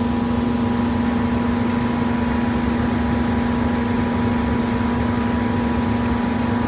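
Steady machine hum: one constant low drone with fainter higher tones over a rumble, unchanging throughout.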